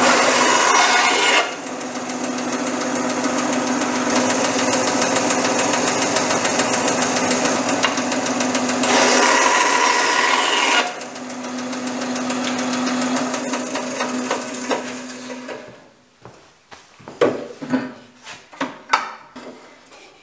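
Benchtop bandsaw running with a steady motor hum, its blade cutting through a round wooden dowel, louder at the start and again about nine to eleven seconds in. About three-quarters through, the saw stops and a series of knocks follows as wood is handled on the metal saw table.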